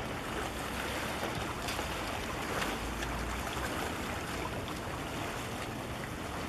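Steady harbour-side noise of water and wind with a low rumble underneath and a few faint ticks.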